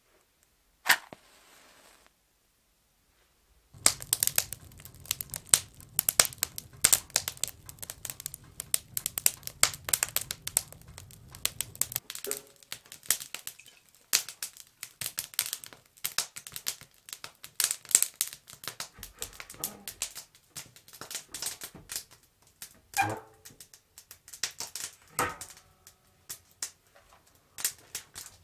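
A match struck once about a second in, flaring with a short hiss. Then kindling crackling and popping irregularly as a fire catches in a wood stove, with a couple of heavier knocks near the end.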